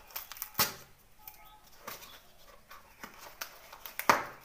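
A paper-wrapped parcel being torn open by hand: irregular rustling and crinkling with sharp rips, the loudest about half a second in and again about four seconds in.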